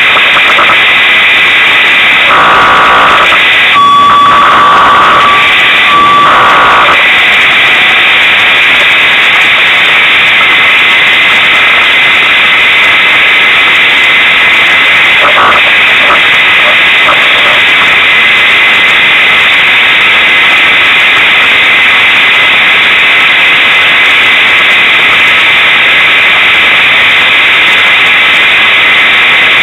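Unimog 404 S trial truck heard from its cab, its running engine and drivetrain overloading the recording into a steady, harsh distorted noise, with a whining tone coming and going in the first several seconds.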